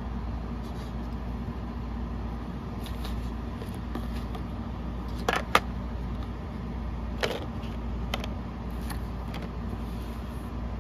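A few sharp clicks and taps as a plastic eye-massager wand and its cardboard box and clear plastic tray are handled, two close together about halfway through and two fainter ones after. A steady low hum runs underneath.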